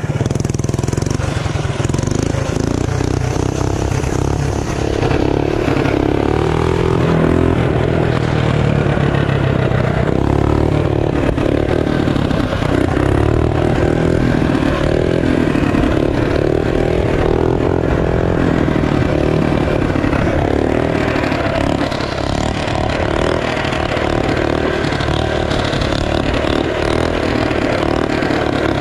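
Performance mini bike's small engine running under way, its note rising and falling again and again as the throttle is worked, with steady wind noise on the microphone.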